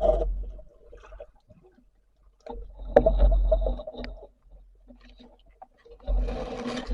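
Water sloshing and bubbling around a diver in the sea, in three bursts about three seconds apart.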